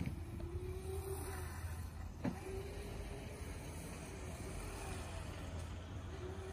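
Small electric kids' motorcycle running, its motor whining in a faint tone that rises and falls as the rider speeds up and eases off. A sharp click a little over two seconds in.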